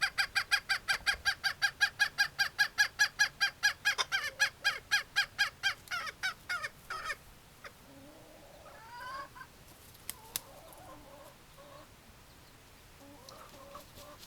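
Chicken calling in a fast, even series of clucks, about seven a second, which slows, fades and stops about halfway through. A few faint calls and two sharp clicks follow.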